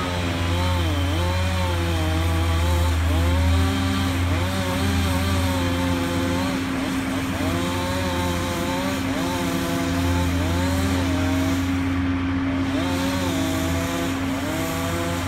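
Chainsaw cutting, its engine pitch repeatedly dipping and climbing back as the throttle is worked, in runs of a second or two. A steady low engine hum runs underneath.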